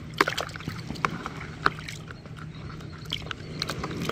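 Liquid sloshing in a plastic bowl as a plastic action figure is pushed under and swished around, with scattered sharp clicks and small splashes over a steady low hum.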